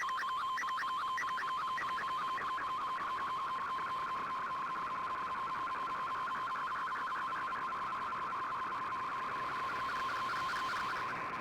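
Shortwave Radiogram digital data broadcast received on a shortwave radio: a steady whistling tone with fast, evenly repeating chirps above it over a bed of static. These are the modem tones that carry the broadcast's text and slow-scan TV images.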